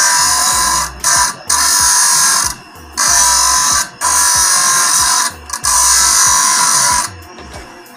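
Metal part pressed against a motor-driven abrasive wheel, a harsh grinding hiss in repeated pushes of about one to one and a half seconds with short breaks, under a low motor hum; it stops about seven seconds in.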